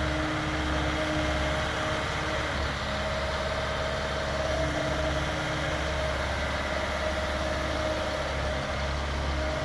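Heavy diesel earthmoving machinery running steadily: an even engine drone with a steady hum over it.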